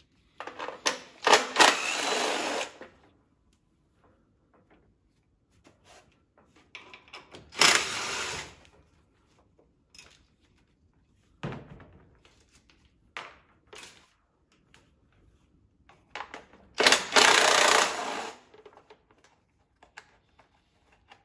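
A handheld power driver with a socket runs in three bursts of one to two seconds each, spinning fasteners out of a riding mower's engine, with light clicks and handling noises between the bursts.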